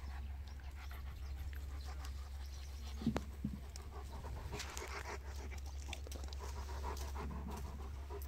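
A Dogo Argentino panting steadily. Two short thumps come about three seconds in.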